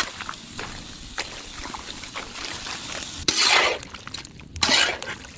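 Ingredients being poured into a cooking pot, with two short pouring rushes in the second half over a steady low hiss.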